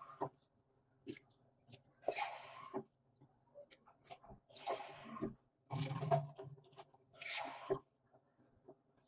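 Water from a kitchen tap splashing into a stainless steel sink in about four short bursts as a plastic cup is rinsed and emptied, with small clicks and knocks of the cup between them.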